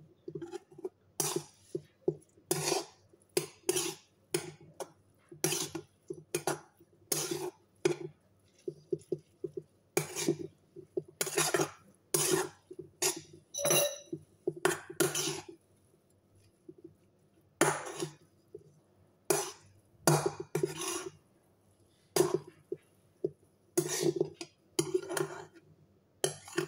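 Metal spoon scraping and knocking against a kadhai while stirring noodles: sharp separate strokes, roughly one a second, with a couple of short pauses.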